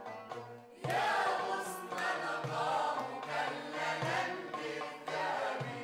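Group of voices singing an Arabic song in unison, accompanied by oud, qanun and a frame drum. The music dips briefly and comes back in louder about a second in.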